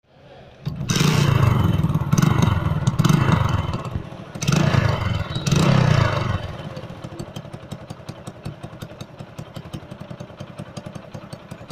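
Air-cooled single-cylinder motorcycle engine revved twice, then settling to an even, rapid idle putter from about halfway in. The exhaust note is the extra silencer noise the owner sets out to cure by changing the band inside the silencer.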